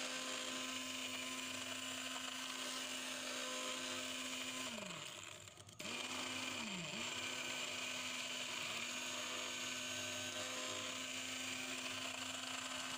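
Electric immersion hand blender running in a steel bowl, beating eggs and sugar into a foamy mix, with a steady motor whine. About five seconds in the whine drops in pitch and almost stops, then starts up again, dips once more and settles back to steady.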